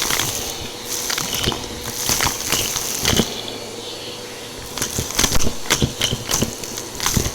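Bissell PowerForce Helix upright vacuum running over a pile of dry debris, with irregular crunching and crackling as the mess is crushed and sucked up over a steady motor hum. The crunching thins out a little past the middle, then comes back dense and sharp about five seconds in.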